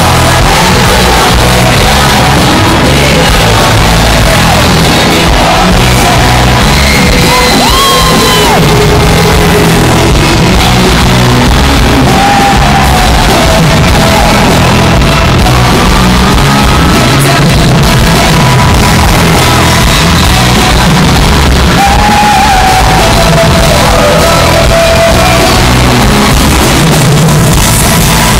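Live pop band music played over an arena PA, heard from within the audience, with the crowd screaming and singing along. Very loud throughout.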